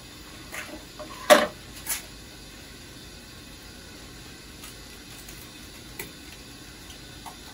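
A strip of tape being cut with scissors: one short, sharp, loud snip-and-rip about a second in and a smaller one half a second later. Then come faint rustles and ticks as the tape is pressed onto a foil-faced insulation cover, over a steady background hum.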